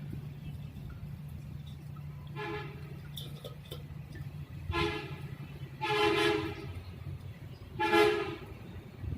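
A vehicle horn honks four times, each honk short, the third the longest. A steady engine hum runs underneath until about halfway through.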